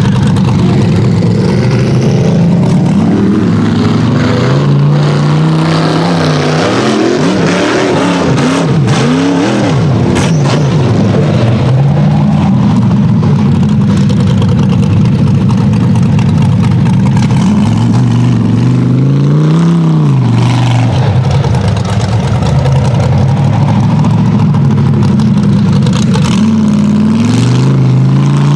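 Off-road rock bouncer buggy's 434 small-block V8 revving hard, its pitch climbing and dropping again and again as the throttle is worked, with a few sharp knocks in the first half.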